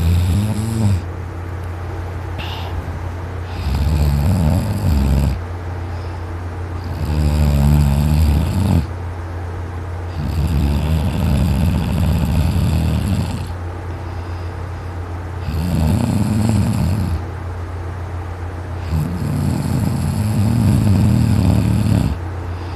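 A man snoring loudly in his sleep: about six long, rasping snores a few seconds apart, over a steady low hum.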